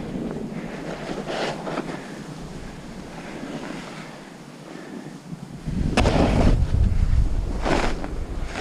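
Snowboard sliding over snow, its edge scraping through turns about a second in and twice near the end, with wind buffeting the microphone. The wind noise drops for a few seconds in the middle and comes back loud about six seconds in.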